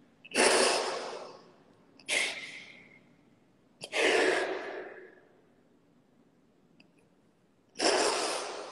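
A woman crying: four loud breathy sobs, each starting suddenly and fading over about a second, with pauses between them.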